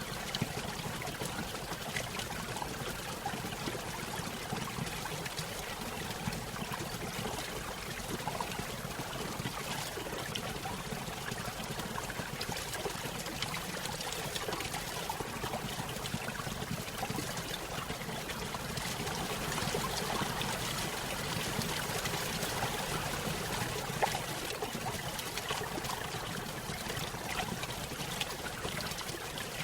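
Small stream running over a little waterfall: steady splashing and trickling of water.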